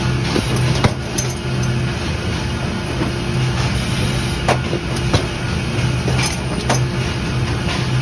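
Automated carton stacker on a factory production line running, with a steady machinery hum and a low tone that swells and fades. Sharp clicks and knocks from the mechanism come at irregular intervals, the loudest about five seconds in.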